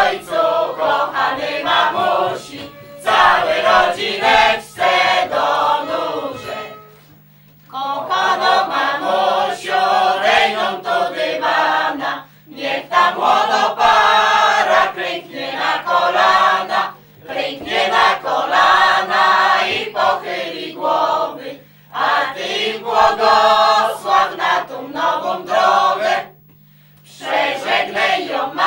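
Unaccompanied group singing of a traditional Sieradz folk wedding song. It comes in phrases of about four to five seconds with short pauses between them.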